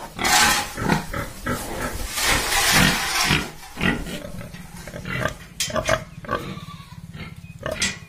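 Yorkshire pigs vocalizing in their pen: one loud call lasting about three seconds, then a run of shorter, quieter calls.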